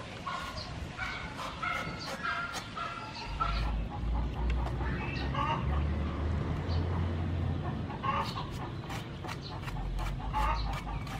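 A cleaver knocking and scraping at the husk of a palm fruit, with short repeated calls from domestic animals in the background over the first few seconds. A low steady hum sets in about three seconds in.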